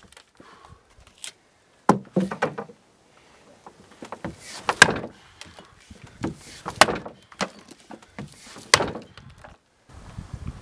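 Axe chopping a standing block, a vertical log clamped upright: four heavy strikes into the wood about two seconds apart, each a sharp thunk, with lighter knocks between them.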